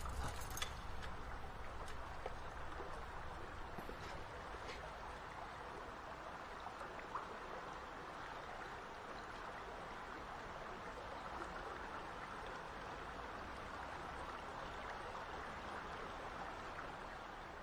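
Steady sewer water ambience: running, trickling water with a few faint drips or clicks in the first several seconds. It starts to fade out right at the end.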